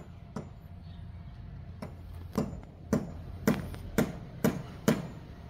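A run of about eight sharp knocks, roughly two a second, over a steady low rumble. The first knocks are faint and the later ones louder, each with a short ringing tail.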